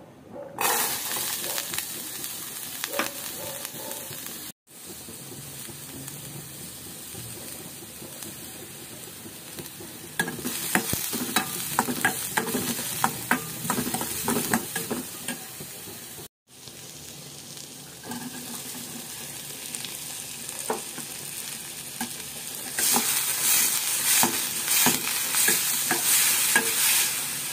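Diced carrots and sliced green beans frying in oil in a stainless steel pan: a steady sizzle, with a spatula scraping and clicking against the pan as they are stirred. The sizzle cuts out abruptly twice.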